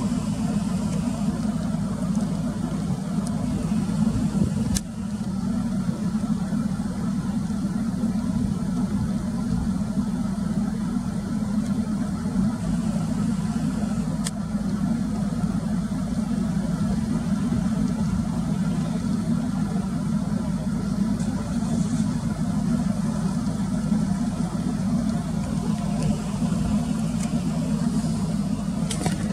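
A vehicle engine idling steadily, a constant low drone.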